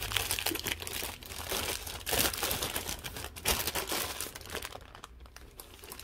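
Clear plastic bag of dishwasher hoses crinkling as it is handled and turned over, in irregular crackles with louder bursts about two seconds in and again about three and a half seconds in.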